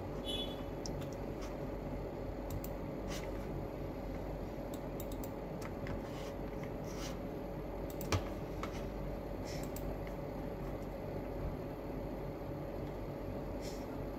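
Faint scattered clicks from a computer mouse over a steady low hum, with one sharper click about eight seconds in.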